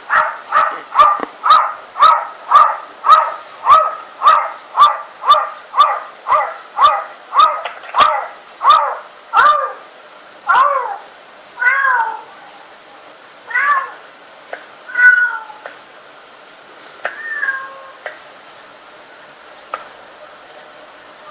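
A cat making short, repeated bark-like meows, about two a second, each dropping in pitch, played back from a video through a device's speaker. After about ten seconds the calls slow to longer, wavering meows a second or more apart and then trail off.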